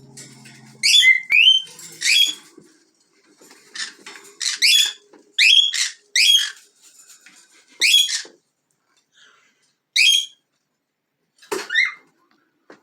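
Small pet parrots giving short, sharp, high-pitched chirps that sweep downward, about ten calls in irregular bursts.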